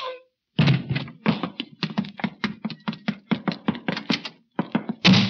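Radio-drama sound effects of a fistfight: a fast run of thuds and knocks, about five a second, as a man is hit over and over, with a louder blow near the end.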